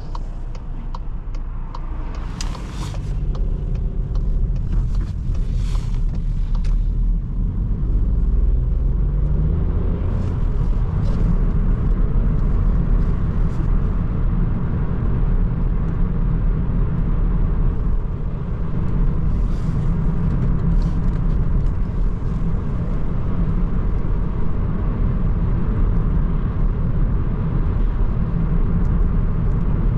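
Seat Ibiza's 1.0 TSI three-cylinder turbo petrol engine running on the move, with steady low tyre and road rumble; the engine note climbs about a third of the way in.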